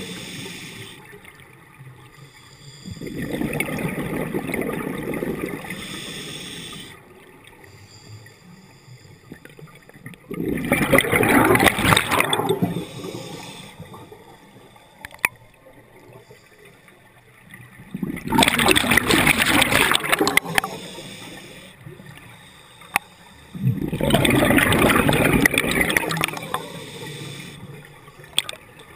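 Scuba diver breathing through a regulator underwater: bubbling bursts of exhaled air come about every seven seconds, four times, with quieter stretches between breaths.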